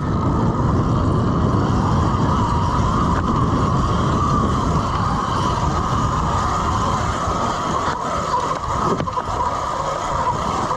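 Electric dirt bike being ridden over dirt: a steady whine from the electric motor and drive over a dense low rumble.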